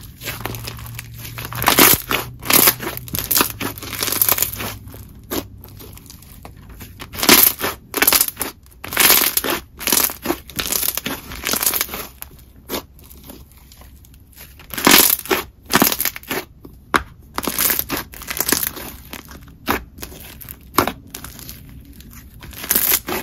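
Play-Doh glossy slime packed with bingsu beads being stretched, squeezed and pulled by hand, giving clusters of crunchy, clicky crackling and bubble pops.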